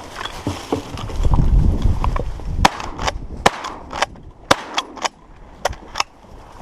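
A low rumble in the first couple of seconds, then a run of about nine short, sharp cracks, irregularly spaced over some three seconds, the first the loudest.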